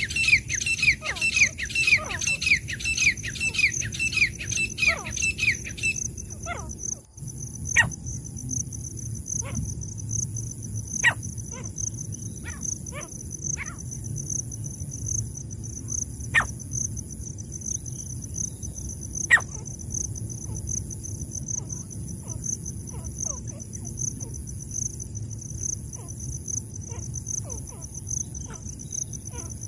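A francolin (teetar) gives a fast run of repeated sharp calls, about two a second, which stops about six seconds in. After that a steady shrill insect trill goes on, with a few scattered short chirps.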